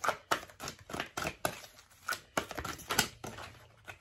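A deck of oracle cards shuffled by hand: irregular papery flicks and slaps of the cards against one another.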